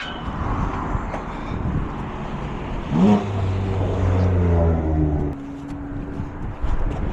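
Motor vehicle engine accelerating: about three seconds in its pitch rises quickly, holds steady for about two seconds, then drops away.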